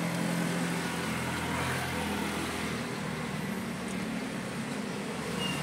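Steady low mechanical hum over a background of noise.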